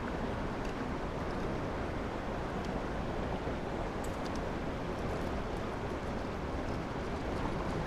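Fast-flowing river water rushing steadily over rocks, with a few faint clicks about four seconds in.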